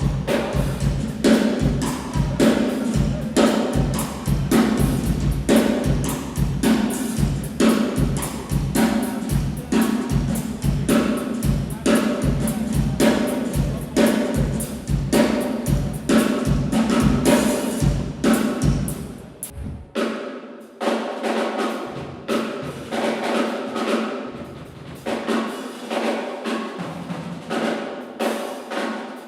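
Acoustic drum kit played in a fast, busy run of snare, toms, kick drum and cymbals. About two-thirds of the way through the kick drum drops out and the playing carries on lighter on the higher drums.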